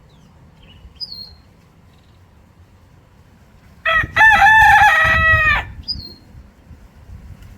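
Rooster crowing once, a single loud crow of a little under two seconds about halfway through.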